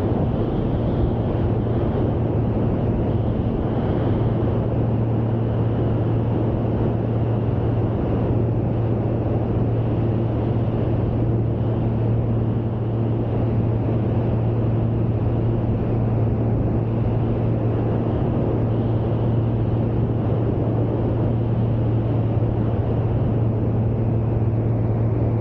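Steady in-flight drone of a light single-engine piston aircraft's engine and propeller at cruise power, a constant low hum with steady overtones that neither rises nor falls.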